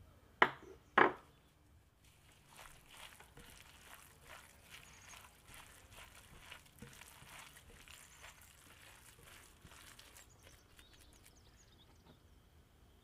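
Two sharp knocks about half a second apart. Then a gloved hand squishes and kneads raw minced chicken with chopped vegetables and spices in a glass bowl, a run of soft, wet squelches for several seconds that stops near the end.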